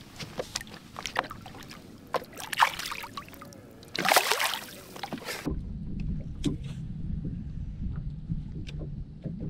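Water splashing and dripping as a bass is lowered over the side of a boat and released, with a loud splash about four seconds in. The sound then switches abruptly to a steady low hum with light ticks.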